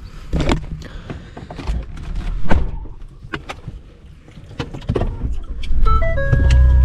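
Scattered clunks and knocks around a car, like doors and gear being handled, then about six seconds in a steady low hum starts with a few chime-like tones over it.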